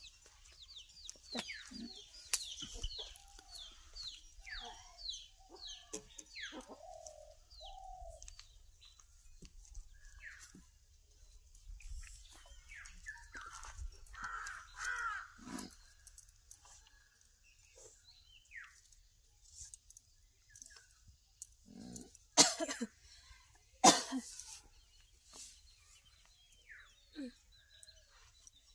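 Birds calling and chickens clucking around a village yard, with a quick run of short falling chirps in the first few seconds and scattered calls after. Two sharp knocks, the loudest sounds, come about a second and a half apart roughly two-thirds of the way through.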